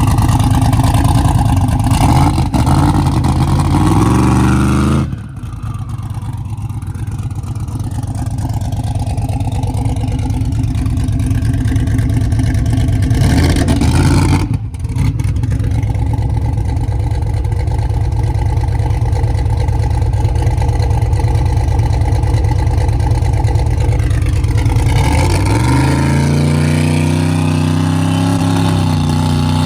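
Turbocharged race car engine pulling under load. Its note climbs over the first few seconds and breaks off sharply about five seconds in, breaks again briefly near the middle, then runs steadily before climbing again near the end.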